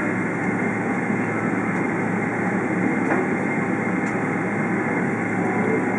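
Steady cabin noise inside a Boeing 777-300ER taxiing after landing: the GE90 engines at taxi power and the rolling airliner give an even rumble and hiss with a low hum.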